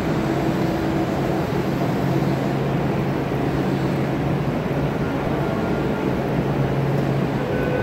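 Steady low mechanical hum and rumble, with a low steady tone that comes in about two seconds in and holds until near the end.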